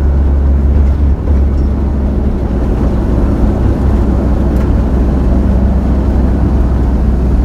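Nissan Cefiro A31 drift car's engine running at steady cruise, a loud low drone heard inside the stripped, roll-caged cabin, with a brief dip about a second in.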